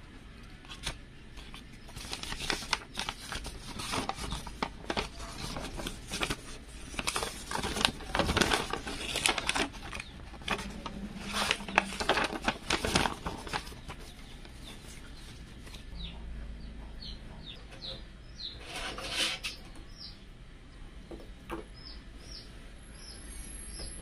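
Folded paper instruction manual being unfolded and handled, crinkling and flapping in irregular bursts, busiest in the first half and dying down after about 13 seconds.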